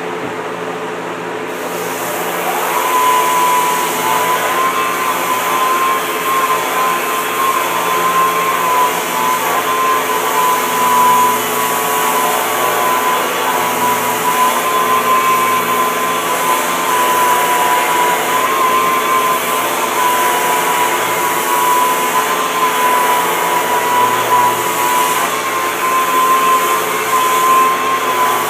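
Handheld rotary sander with a foam sanding pad, an angle-grinder-type machine, running under load as it sands a surfboard. It comes in about two seconds in and then runs as a steady whine with a gritty hiss of sanding, the pitch wavering slightly as the pad is pressed and moved over the board.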